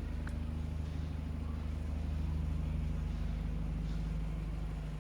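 Car engine running steadily at idle or low speed, a constant low hum with no change in pitch.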